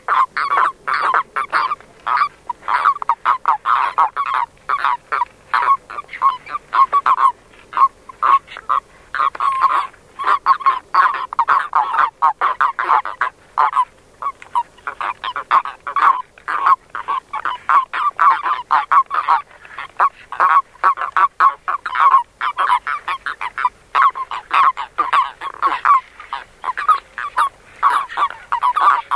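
Common toads (Bufo bufo) giving release calls, the short protesting chirps a male makes when clasped by another male. They come in rapid runs, several a second, broken by a few brief pauses.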